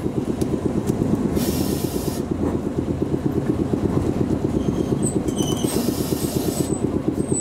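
Iyotetsu Moha 50 streetcar running on street track, heard from inside the car: a steady rumble with a fast, even rattling pulse. Two short bursts of hiss come through, about a second and a half in and again near six seconds.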